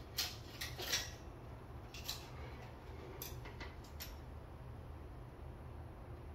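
A handful of light clicks and knocks in the first four seconds, then only a steady low hum.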